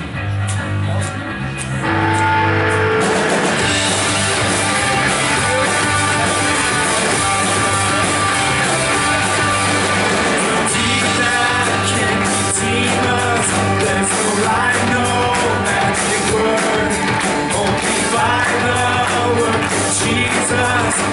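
Church worship band playing a rock-style song with bass and guitar, growing fuller about two seconds in, with singing coming in around the middle.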